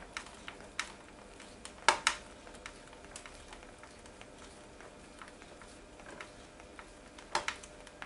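Small Torx screwdriver driving an over-long screw into the plastic housing of a Dyson DC07 vacuum cleaner: scattered light clicks and ticks as the driver is turned and regripped, with a couple of sharper clicks about two seconds in and again near the end.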